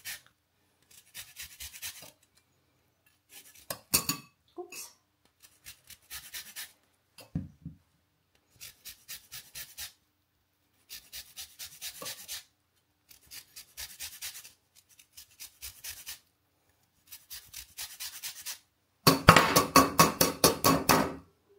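A cut lemon half being zested on a stainless-steel rasp zester: short runs of quick scraping strokes with brief pauses between them, and a louder, quicker run near the end.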